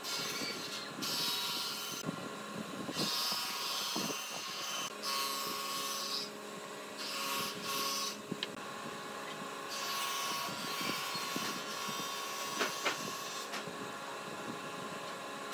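A pen scratching along a metal square on rough wood in short strokes that start and stop, over a steady background hum.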